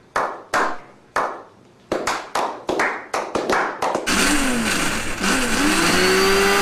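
Hands clapping in a slow clap: single claps about half a second apart, speeding up to quick claps. About four seconds in, an electric countertop blender starts, pulsed to chop garlic with salt for toum. Its motor whine rises, drops briefly and rises again to a steady pitch.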